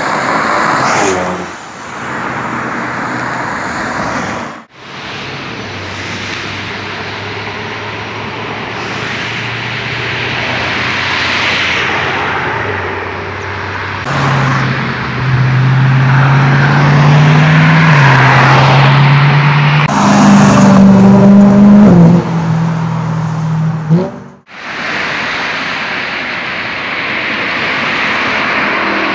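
Traffic noise as cars pass on a multi-lane road, in several short cuts. In the middle one engine sounds loudest as it accelerates hard, its pitch climbing and dropping twice with gear changes.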